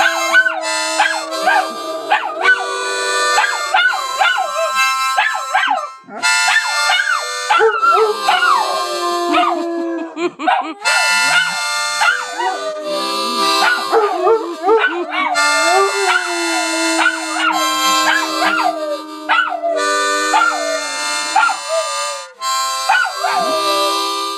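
A Doberman howling along to a harmonica. The harmonica holds steady notes and chords while the dog's howls slide up and down in pitch over them, breaking off and starting again every few seconds.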